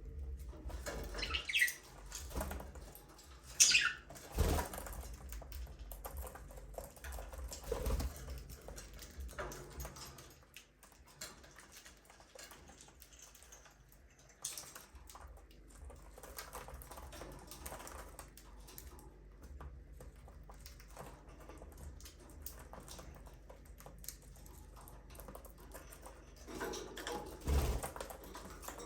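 Pet budgerigars: two short chirps that fall in pitch in the first few seconds, then faint scattered rustling and ticks, with a few soft low thumps.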